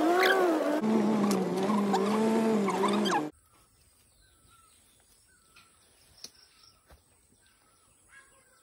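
A vehicle engine running, its pitch wavering and stepping down about a second in, cut off abruptly about three seconds in; what follows is quiet with a few faint chirps.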